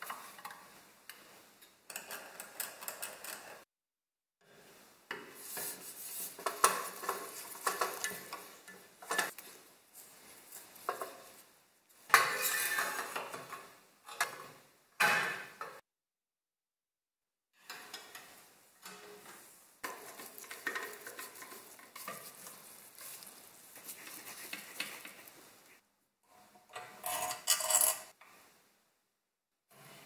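Hand tools working on a fan heater's sheet-metal parts: a screwdriver turning screws, with small metal pieces clinking and scraping against the housing. The sound comes in a series of short clips that start and stop abruptly, with silent gaps between them.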